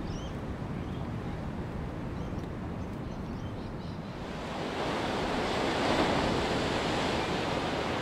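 Low wind rumble with a few faint bird chirps, then, about halfway through, surf breaking on a rocky shore swells in and becomes the loudest sound, staying at a steady wash.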